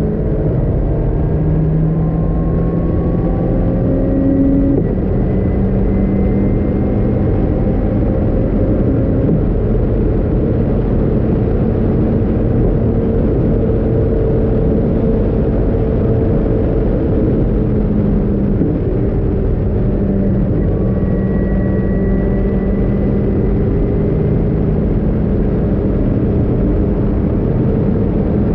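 In-car sound of a Caterham R500 at high speed: the engine running under load, its pitch rising slowly over the first few seconds, mostly buried under heavy wind rush in the open cockpit.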